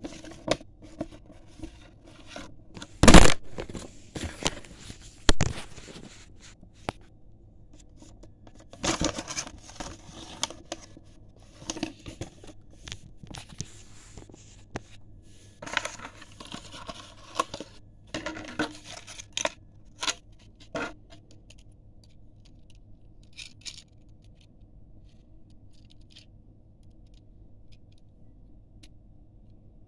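Toy packaging being handled and opened: a paper leaflet and a clear plastic blister pack rustling, crinkling and tearing, with scrapes and clicks and one sharp clack about three seconds in. After about twenty seconds it goes much quieter, with only faint ticks as the small diecast car is handled.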